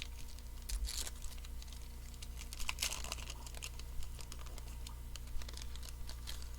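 Baseball trading cards being handled and flipped through, with scattered light clicks and short sliding swishes of card against card, over a steady low hum.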